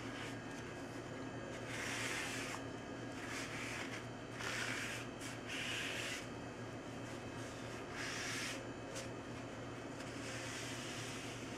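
Paper towel rubbing along the glued edges of a plywood frame to wipe off squeezed-out glue: several short rubbing swishes, over a steady low hum.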